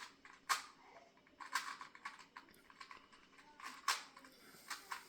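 Plastic clicks and clacks of a 2x2 Rubik's cube being turned by hand, in irregular bursts of quick twists with a few sharper snaps.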